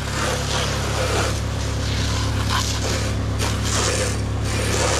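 Pressure washer's engine running steadily while the wand sprays cleaning solution, with the hiss of the spray against the eaves and brick rising and falling as the wand moves.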